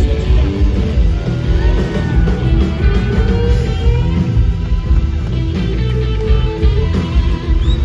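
Live blues-rock band playing loud, with drums and bass under an electric guitar lead whose notes bend and slide in pitch.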